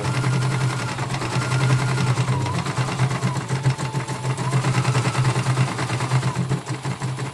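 CNY portable embroidery machine stitching a design, its needle running at a steady fast rate, with a fainter whine that rises and falls in pitch.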